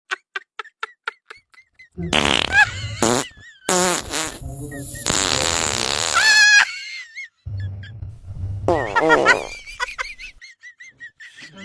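Fake fart sound effects: three long, loud, sputtering fart noises with a wavering pitch, the first starting about two seconds in after a run of short high blips.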